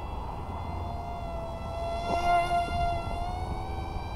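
Motor and two-blade Gemfan Hurricane 3018 propeller of a small electric RC plane (XK A180 F-22) in flight: a steady high whine. Its pitch sags slightly, gets louder for a moment just past halfway with a brief click, then rises a little toward the end.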